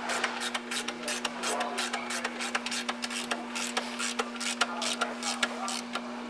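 Ratchet wrench clicking rapidly as it is worked back and forth on an alternator pulley nut, with a steady hum underneath.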